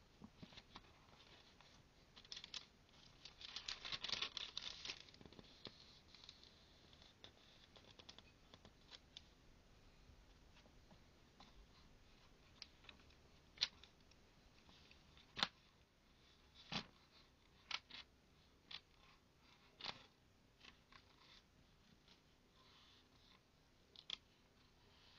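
Soft paper rustling as a thin-paged book is opened and its pages turned by hand, with a denser stretch of rustle a few seconds in, then a run of short, crisp page flicks and snaps spread through the second half.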